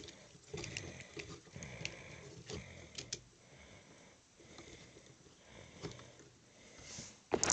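Hard plastic action-figure parts being handled: scattered light clicks and rubbing as a sword is fitted into the figure's hand, with a sharper click near the end.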